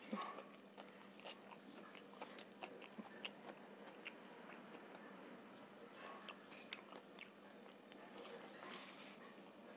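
Close-miked chewing of homemade vegetable pizza: soft, irregular mouth clicks and crackles, with one sharper click about two-thirds of the way through.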